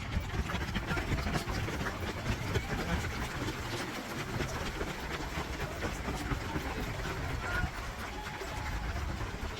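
Murmur of a large gathered crowd of runners talking, over a steady low rumble.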